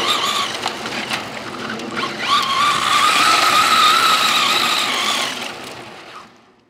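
1:5-scale AutoRally rally truck's electric drive motor running at speed, a steady high whine, with its tyres scrabbling on loose dirt. The whine breaks off about half a second in, comes back about two seconds in, and fades away near the end.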